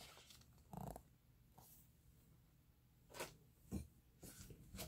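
Near silence, with a few faint knocks and rustles of a hardcover picture book being lifted and held open.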